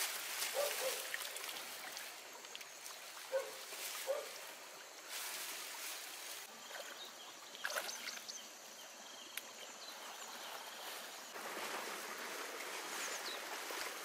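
Plastic sheeting over low seedling tunnels rustling in bursts as it is lifted and pulled back, with water trickling in the flooded furrows and a few short, high bird chirps.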